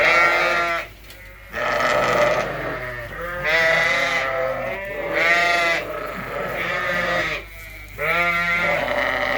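Suffolk sheep bleating repeatedly, about six long wavering calls from several animals, some overlapping.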